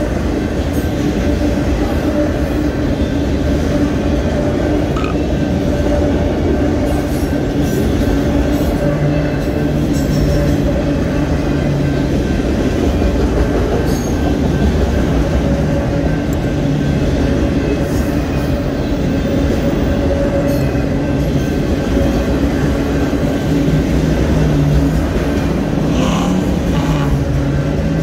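Union Pacific freight train of autorack cars rolling steadily past: a continuous loud rumble and rattle of steel wheels on rail, with a faint steady squeal from the wheels and occasional clicks.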